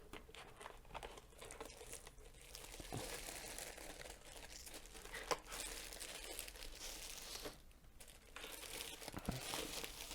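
Faint crinkling and rustling of packaging being handled and unwrapped, with scattered light clicks and a short lull about three-quarters of the way through.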